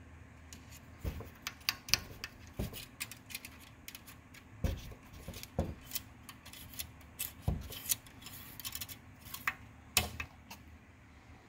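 Engine oil dipstick of a Chevrolet Camaro's Ecotec LTG 2.0L turbo four being fed back down its tube: the thin metal blade scrapes and ticks against the tube in a string of small clicks, with a few dull knocks. A sharper snap about ten seconds in is the handle seating.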